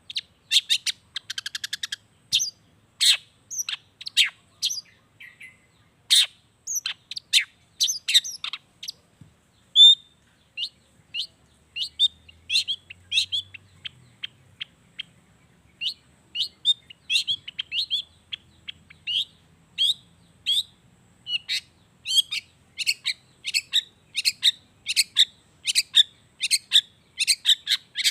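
Long-tailed shrike (cendet) singing a varied song of short, sharp, high notes with mimicked natural sounds woven in. There is a rapid trill about a second in, then a long run of clipped notes at about two a second.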